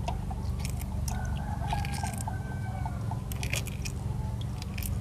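Shells of hard-boiled duck eggs crackling and crunching in small irregular clicks as they are peeled by hand over a pot of water.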